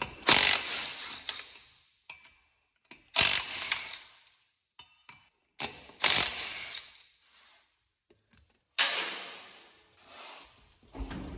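Wheel lug nuts being run off with a wrench in four loud mechanical bursts, each about a second long, cutting in sharply and trailing off.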